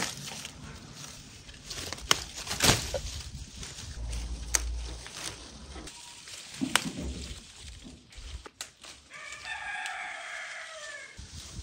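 Quince branches rustle, with sharp snaps and cracks as fruit is pulled off by hand. About nine seconds in, a rooster crows once, a single long call that falls slightly at the end.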